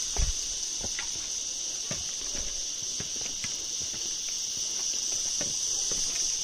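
Footsteps on loose stones and rock, a step roughly every half second, over a steady high-pitched drone of insects.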